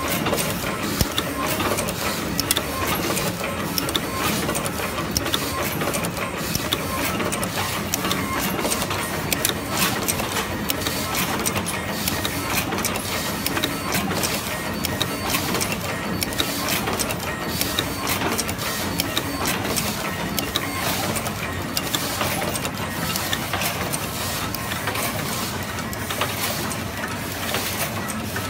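Automatic one-head wire stripping and terminal crimping machine running, a steady clatter of dense clicks and knocks from its mechanism.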